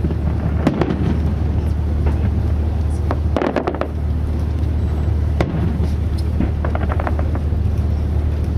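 Fireworks going off: scattered bangs and bursts of crackling, densest about three seconds in and again later, over a steady low rumble.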